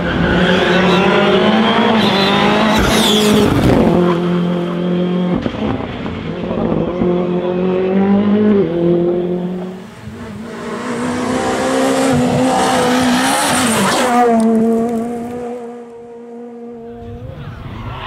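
Rally car engines at hard throttle through a tarmac corner, one car after another. The engine pitch climbs and then drops with lifts and gear changes, and tyres squeal. A car fades away about ten seconds in, and the next one comes up close.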